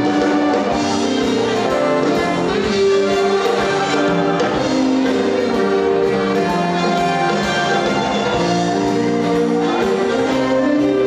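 Live stage band playing an instrumental passage, with brass horns carrying held notes over an upright bass and a steady beat.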